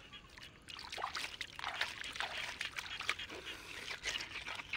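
Bare hands digging and squeezing wet mud, a run of short squelches with water trickling, picking up about a second in.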